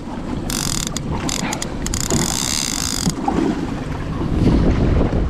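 Fishing reel ratcheting in two bursts, a short one about half a second in and a longer one from about two seconds in, over steady wind noise on the microphone.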